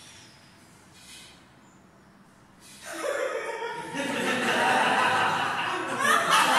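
A group of people laughing together in a laughter-yoga exercise. The laughter starts about three seconds in and builds into loud, continuous laughter from many voices.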